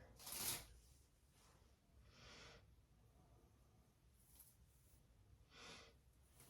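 Near silence with three short, faint breaths. The first, about half a second in, is the loudest; the others come about two seconds in and near the end.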